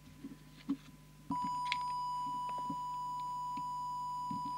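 A steady, high-pitched test tone from an audio oscillator switches on with a click about a second in and holds, feeding the CB transmitter for a deviation check. A few faint clicks of handling come before it.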